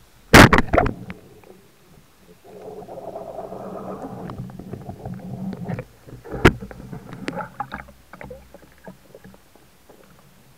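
Speargun fired underwater: a loud sharp crack about half a second in, with a few quick knocks right after. A rushing, churning noise follows for about three seconds, then a single sharp click and a few scattered knocks.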